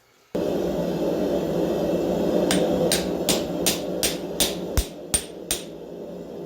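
Hand hammer striking hot 5160 spring steel on an anvil, flattening and spreading the upset head of a chisel. There are about nine sharp blows at roughly three a second in the middle of the stretch, over a steady rushing background noise.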